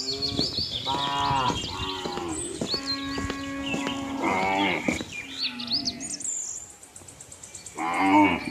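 Cattle mooing: several moos one after another, with a quieter gap shortly before one last moo near the end. Birds chirp with short rising calls high above the moos.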